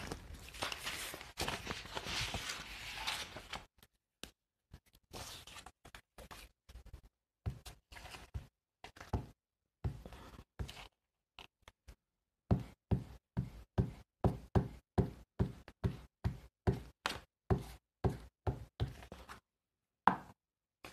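Paper being handled, then a UHU glue stick rubbed across paper in repeated short strokes, each stroke a short sharp sound, settling into a steady rhythm of about two strokes a second in the second half.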